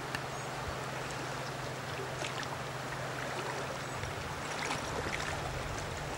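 Steady rush of flowing river water, with a few faint ticks.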